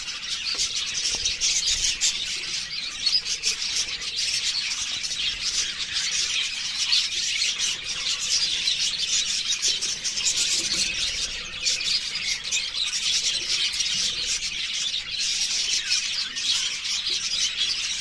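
A large flock of budgerigars chattering and chirping together in a continuous high, dense warble.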